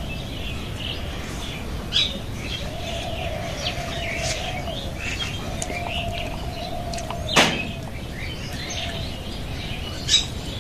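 Small birds chirping and calling steadily, with a faint drawn-out tone coming and going beneath them and a few sharp clicks, the loudest about seven seconds in.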